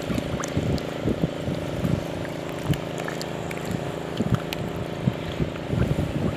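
A motor engine droning steadily in the background, with irregular low splashes and sloshes of water as a fish is worked out of a cast net.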